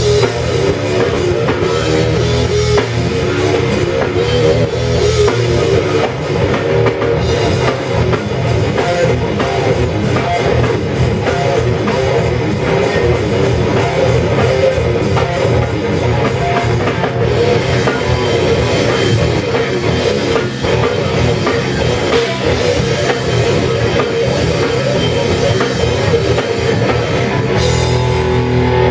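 A rock band playing live in a room: electric guitar, bass guitar and a drum kit with cymbals. Near the end the drums drop out and guitar notes are left ringing.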